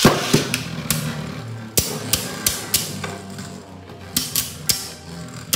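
Two Beyblade Burst spinning tops launched into a plastic stadium, loudest at the launch, then whirring as they spin and knocking into each other with sharp clacks, several separate hits spread through the battle.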